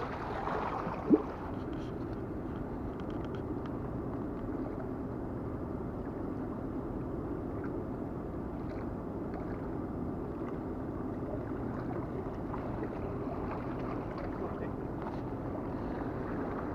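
Steady wash of sea waves against a rocky shore, with one short sharp sound about a second in.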